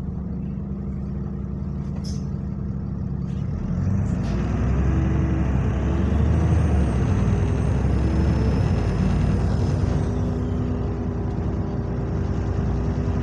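Diesel bus engine heard from inside the cabin, running steadily and then pulling harder from about four seconds in, with a high thin whistle that rises and fades away, which the title puts down to a turbo leak. A short sharp hiss comes about two seconds in.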